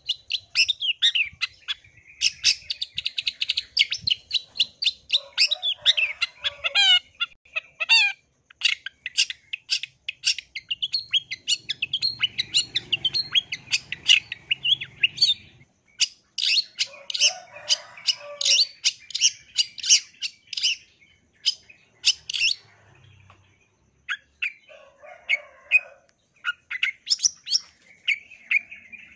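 Long-tailed shrike (cendet) singing hard: rapid runs of short, sharp, high notes and chattering trills, in long bursts with a few brief breaks.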